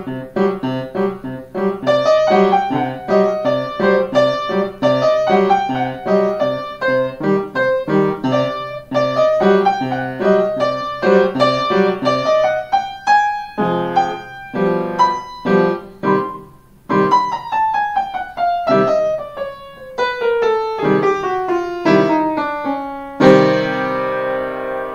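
Upright piano played by a child: a brisk run of repeated, struck notes in a piece still being learned, with a falling line of notes in the second half. It ends on a loud chord held near the end.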